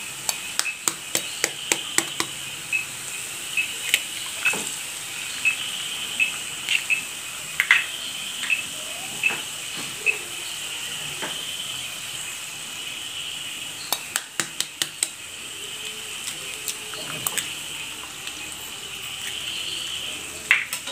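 Onion masala frying in oil in a kadai as eggs are cracked into it: a steady sizzle, with runs of sharp clicks and taps in the first two seconds and again around the middle.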